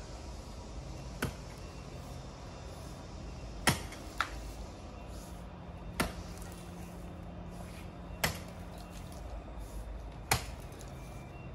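A pick swung overhead strikes hard, compacted dirt with a sharp thunk about every two seconds, four heavy blows after a lighter knock.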